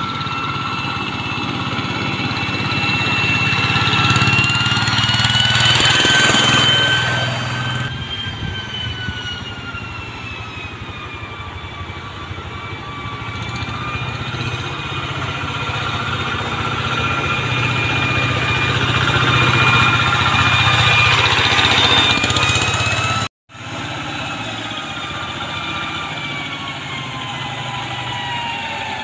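Tractor engine running steadily, with a high whine over it that slowly rises and falls in pitch. The sound drops out for a moment about 23 seconds in.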